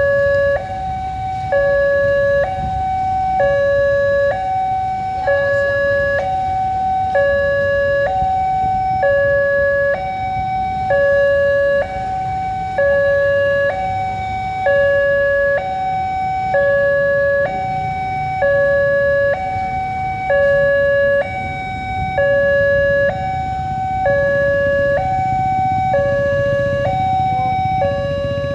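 Indonesian railway level crossing's new electronic warning alarm sounding, alternating evenly between a lower and a higher tone: the signal that the barrier is down and a train is approaching. A low rumble runs underneath.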